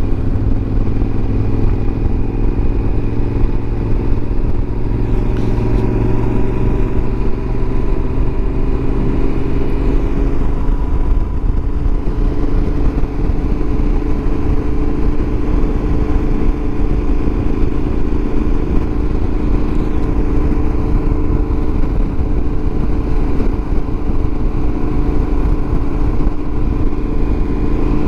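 Yamaha Super Ténéré XT1200Z's parallel-twin engine running at a steady highway cruise, its note drifting gently as the speed changes, under a heavy rumble of wind on the microphone.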